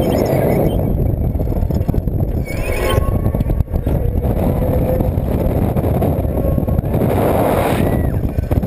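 Wind rushing over the microphone of a camera riding on a spinning thrill-ride arm, a loud steady buffeting that swells briefly about seven seconds in.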